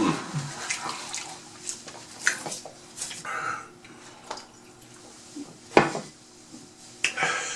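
Eating sounds: cutlery and dishes clinking and tapping in scattered clicks, with one sharper click about six seconds in.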